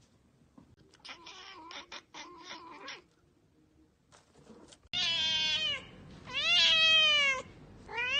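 Cats meowing: a few quieter short sounds a second or two in, then three long, loud meows of about a second each, starting about five seconds in; the middle one rises and then falls in pitch.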